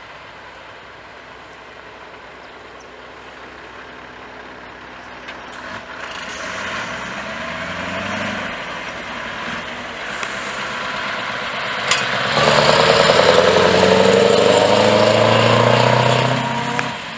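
Scania tractor unit's diesel engine accelerating as it pulls away and drives past close by, the engine note rising in steps and growing louder, loudest for the last few seconds as it passes. A short sharp click about twelve seconds in.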